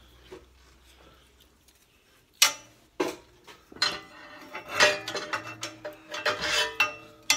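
Welding rods and their box handled and set down on a slatted steel welding table. Two sharp knocks come a couple of seconds in, followed by an irregular run of metallic clinks and clatter.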